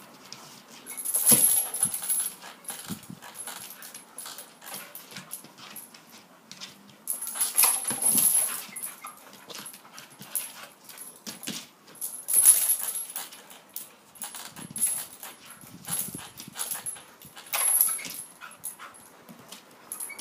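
A dog playing tug with a rope toy hung from a tree branch, jumping and yanking at it: the branch and its leaves shake and rustle in several loud bursts, with small noises from the dog in between.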